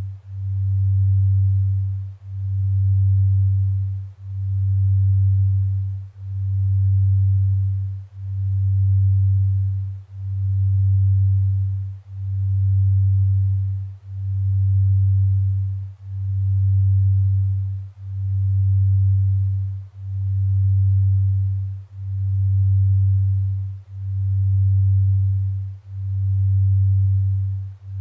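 Low, pure electronic sine tone that swells and fades evenly about once every two seconds, like a slow pulse. It is a synthesized binaural-beat brainwave-entrainment tone meant to induce delta sleep.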